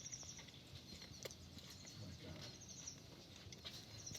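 Near silence: faint outdoor ambience with a couple of short, high chirping trills and a few faint clicks.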